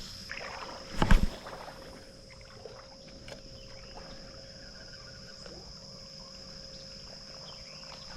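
A steady high-pitched drone of insects, with one loud sudden knock or splash about a second in.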